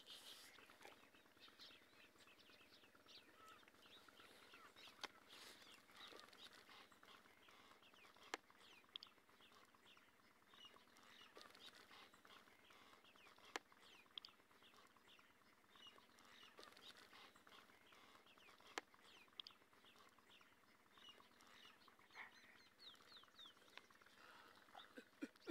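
Faint chorus of small birds chirping, many short quick chirps going on all the while, with a few sharp clicks now and then.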